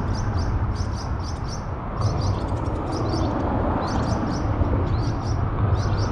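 Small bird chirping in quick repeated bursts of high, short notes over a steady low rumble of road traffic.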